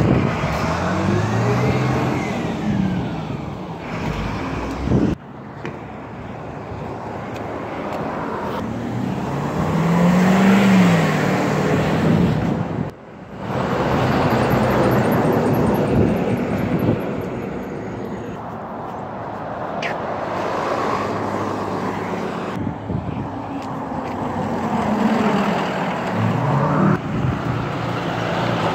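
Street traffic: several vehicles drive past one after another, each engine note rising and then falling as it goes by, over a steady bed of tyre and road noise. The sound breaks off abruptly twice.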